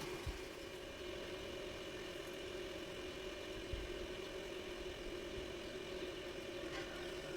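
Steady low machine hum made of several fixed tones, with a couple of faint knocks, one near the start and one about four seconds in.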